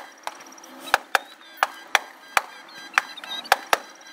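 Aerial fireworks going off in quick succession: about nine sharp bangs from shells launching and bursting, two or three a second at uneven spacing.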